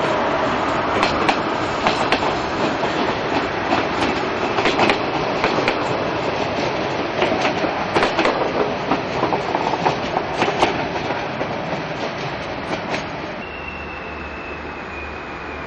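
Stainless-steel SNCF passenger coaches rolling past, their wheels clattering over rail joints in an uneven run of sharp clicks. Near the end the clatter gives way to a quieter steady high whine, slowly falling in pitch, over a low pulsing hum.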